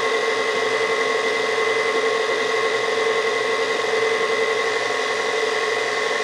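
Electric stand mixer running at a constant speed with a steady motor whine, mixing sourdough bread dough as the flour is worked in.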